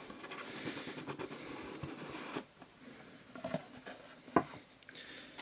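Faint rubbing and scraping as the camcorder's packaging is opened, followed by a couple of light clicks or taps.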